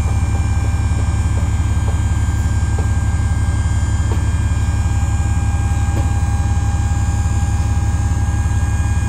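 An engine running steadily at a constant speed, a low rumble with a fast even pulse and a faint steady whine above it.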